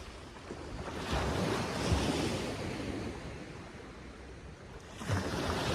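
Surf washing on a sandy beach, with wind buffeting the microphone; the noise swells about a second in and again near the end.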